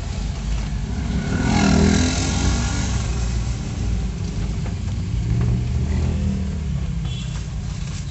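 Car cabin road noise from slow driving in traffic, with a steady low engine and tyre rumble. About a second and a half in, a nearby engine, likely a passing motorcycle, grows briefly louder and its pitch falls.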